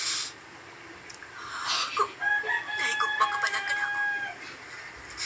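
A rooster crowing once, a long call of about two seconds that starts about two seconds in. Brief hissy noises come before it.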